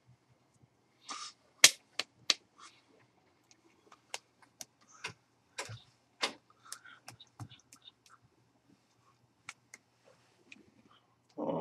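Irregular sharp clicks and smacks from a person signing in sign language, his hands striking each other and his mouth smacking as he signs. There are about a dozen of them, the loudest about one and a half seconds in.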